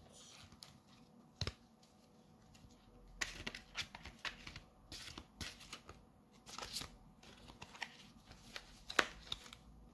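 A deck of oracle cards being shuffled by hand: a run of irregular quick card rustles and snaps that gets busier about three seconds in, with the sharpest snap near the end.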